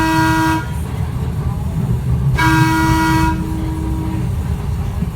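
TECO Line streetcar's horn (its whistle) sounding one steady note: a blast that cuts off about half a second in, then a second blast about two seconds later lasting roughly a second and a half, over the streetcar's steady low running rumble.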